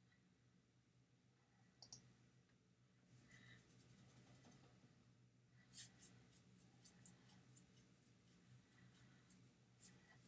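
Faint desk-work sounds: soft scratching, then a quick run of light clicks, about four or five a second, through the second half.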